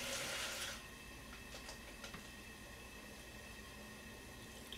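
Kitchen tap running briefly, an even rush for under a second, followed by a few faint clicks of handling.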